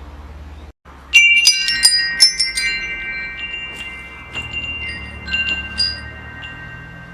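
Metal wind chimes jangling: a quick cluster of strikes about a second in, then a few scattered strikes, each tone ringing on for several seconds. A low steady hum runs underneath.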